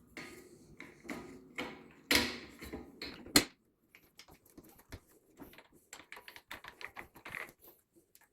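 Hard plastic parts and bolts clicking and rattling as they are handled and fitted by hand: a handful of knocks in the first half, the sharpest about three seconds in, then a run of small quick ticks.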